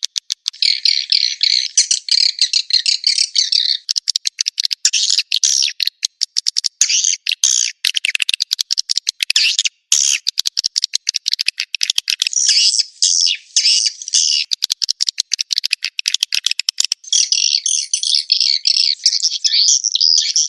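Swiftlet call lure track: dense, loud twittering chirps of swiftlets mixed with rapid runs of dry clicks, all high-pitched with no low sound at all.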